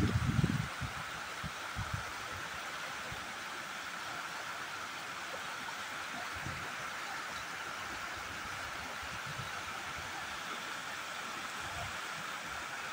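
Steady rush of flowing river water, with a few low thumps in the first second.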